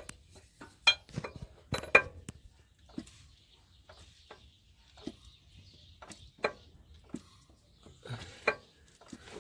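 Scattered metallic clinks and knocks of hand tools and metal engine parts being handled. The loudest come about one and two seconds in and again near the end.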